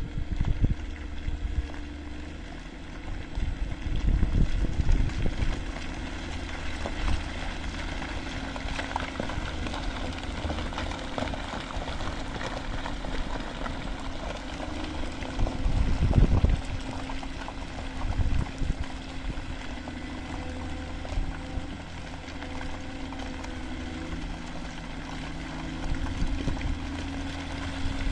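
A Caterpillar 140M motor grader's diesel engine running steadily, with louder rough bursts of noise about four and sixteen seconds in.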